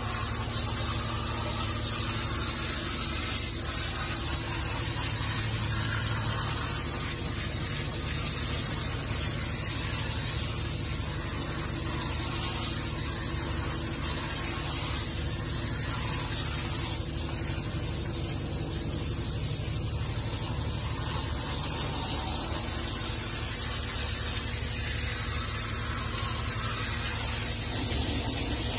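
Shower sprayer hissing steadily as it jets water onto a wet dog's coat in a grooming tub, over a steady low hum.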